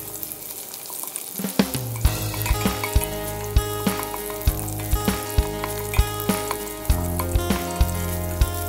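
Sliced garlic sizzling in hot oil in a stainless steel pot as a wooden spoon stirs it, over background music with held notes and a light beat of about two clicks a second.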